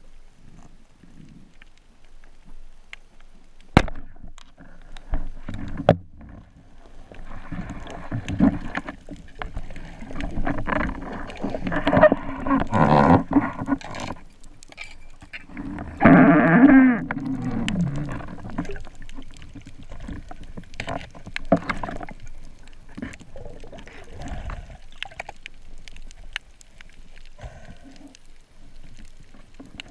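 Underwater sound of a spearfishing dive picked up by the camera: scattered clicks and knocks with water movement, a sharp click about four seconds in, and a loud rush of noise with a falling tone about sixteen seconds in.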